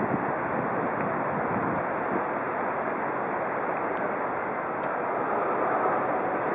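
Steady rushing outdoor city noise, distant traffic and wind blowing on the microphone, with no distinct events.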